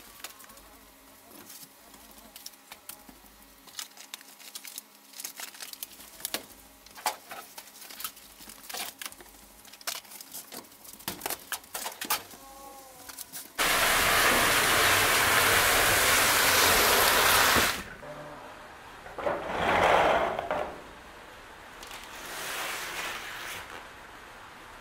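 Footsteps and scattered knocks and clicks inside the emptied cargo box of a moving truck, coming thicker about ten seconds in. Then a loud, even rush of noise starts and cuts off suddenly a few seconds later, followed by two shorter swells of noise.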